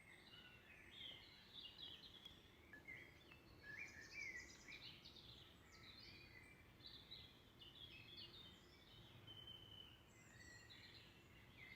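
Songbirds singing faintly in a steady run of varied chirps and warbling phrases.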